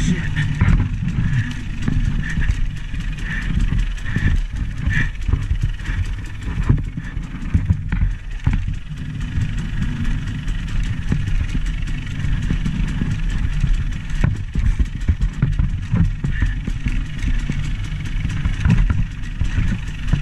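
A vehicle engine running steadily, with many short knocks and rattles throughout.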